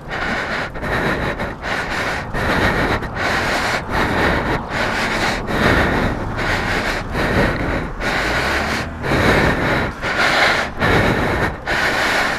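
A man breathing hard and panting close to the microphone, rough breaths roughly once a second, out of breath from pushing a heavy motorcycle by hand.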